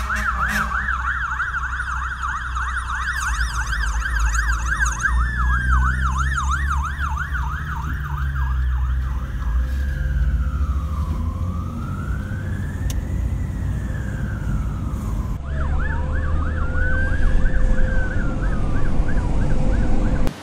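Fire truck sirens from a DFES pump and light tanker responding: a fast yelp of about four cycles a second switches about nine seconds in to a slow rising-and-falling wail. After a cut, another pair of fire trucks sound a wail and a yelp together. A steady low rumble of engines and road noise runs underneath, heard from inside a car.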